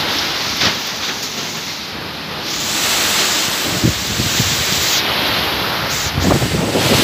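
Typhoon wind gusting with heavy rain, the wind buffeting the microphone. The rush grows louder about two and a half seconds in, with a few short thumps of wind on the microphone.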